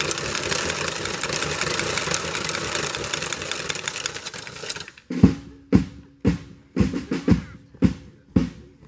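A drum roll that thins out and fades over the first five seconds, then a drum beating a steady march pulse of about two strokes a second, each stroke ringing briefly.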